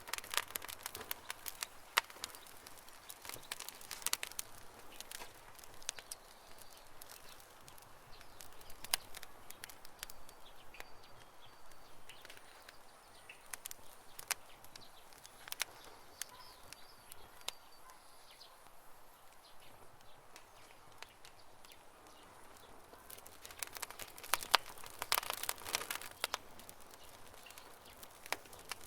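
Campfire crackling: irregular sharp pops and snaps, coming in a denser flurry near the end. Faint bird chirps in the background midway.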